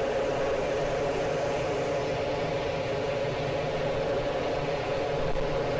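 A vehicle's engine running with a steady drone, heard from inside the cab, under a constant hiss of heavy rain and water.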